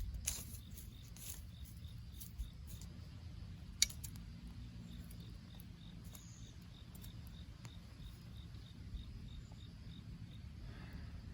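An insect chirping in an even series of short high chirps, about three or four a second, over a low rumbling background. A few sharp clicks sound in the first four seconds.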